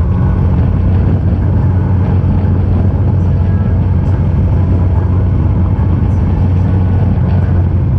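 Motorcycle engine running at a steady speed while riding, a constant low hum, with wind and road noise.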